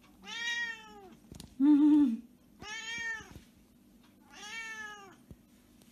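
Havana Brown cat meowing three times, each meow about a second long, rising then falling in pitch. Between the first two meows comes a short, louder, lower-pitched hum.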